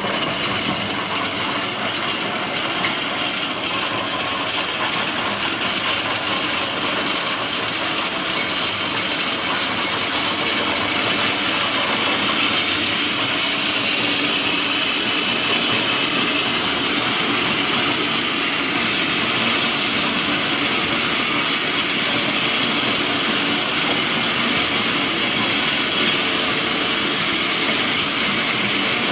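Mini continuous olive-oil extraction machine running, a steady, even mechanical noise that grows a little louder about ten seconds in.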